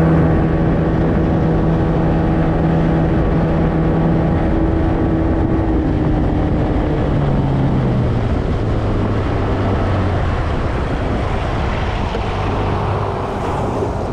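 Small outboard motor on an aluminium boat running steadily under way, with water noise; about seven seconds in its pitch drops as the throttle is eased off, then it runs on at the lower speed.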